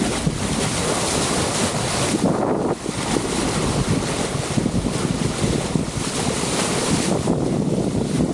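Wind buffeting the microphone, mixed with water rushing and splashing along the hull of a sailboat moving under sail through the waves.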